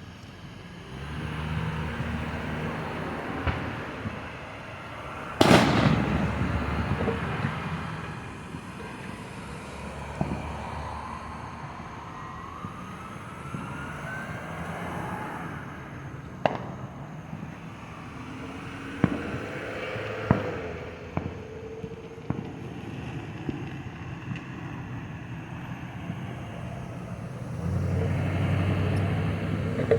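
Fireworks going off: one very loud bang about five seconds in, then scattered sharper cracks and pops through the rest, with a low rumble underneath.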